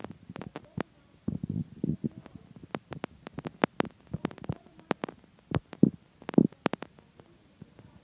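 Irregular sharp clicks and taps mixed with muffled low rumbles and bumps, coming at uneven intervals.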